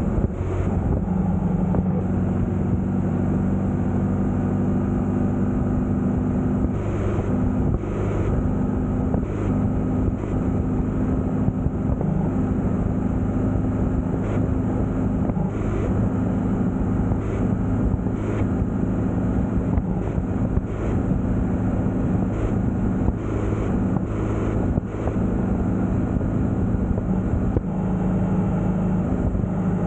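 Vehicle engine running steadily at road speed, its pitch shifting slightly every few seconds, over a constant rush of road and wind noise.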